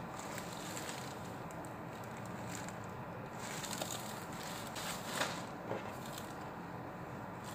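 Rustling and crinkling of a cotton shirt and its wrapping as hands unfold and handle them, with a few sharper crinkles around four and five seconds in, over a steady background hiss.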